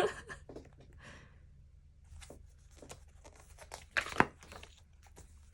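Pages of a paper photobook being handled and turned, with scattered paper rustles and two sharper page flicks about four seconds in.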